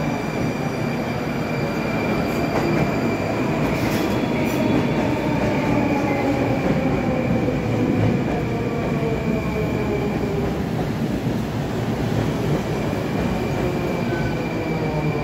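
Moscow Metro trains running along the platform: a steady loud rumble of wheels on rail, with motor whine that slides slowly down in pitch over about the first ten seconds, and a thin steady high tone.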